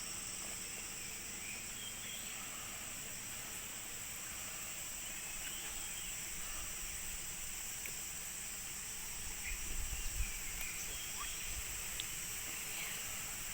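Steady high-pitched drone of insects, with a few faint short bird chirps scattered through it. A brief low rumble about ten seconds in.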